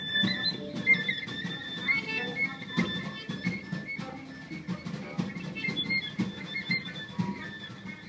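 Free-improvised avant-garde music from a quartet of double bass, drums and percussion, viola and electric guitar: sustained high string tones over scattered plucked notes and short percussive clicks and taps.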